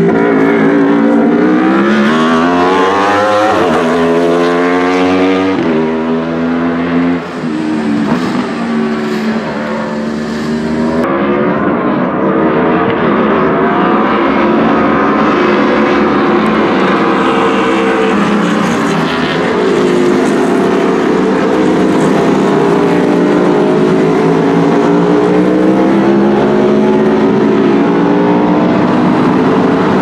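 Aprilia-powered Wolf GB08 sport prototype engines at high revs: one car accelerates hard through several quick upshifts, its pitch climbing and dropping at each shift, then race cars run continuously on track, the engine note rising and falling through the gears.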